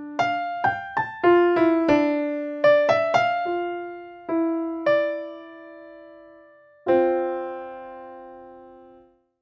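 Solo piano music: a quick string of struck notes in the first few seconds, then slower notes, and a chord about seven seconds in left to ring and fade.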